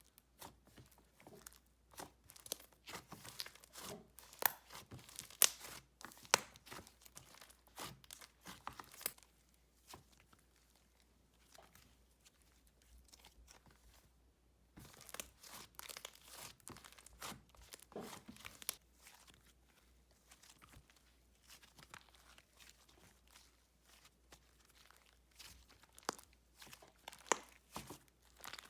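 Hands squishing, folding and stretching a soft butter slime, making a run of small sticky clicks and crackles with quieter pauses in between.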